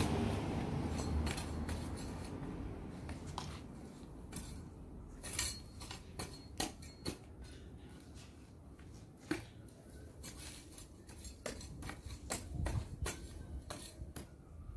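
Sharp metallic snips and clicks from a lawn edging tool cutting grass at the lawn's edge, coming irregularly about once or twice a second. A passing vehicle's low rumble fades out over the first few seconds.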